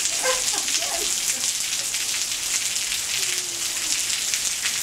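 Steady rain falling on a concrete walkway and gravel beds: an even, dense hiss made up of countless small drop splashes.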